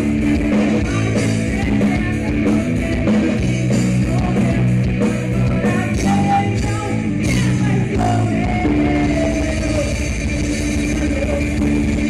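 Rock band playing heavy rock on drum kit, electric bass and electric guitar, with a voice singing.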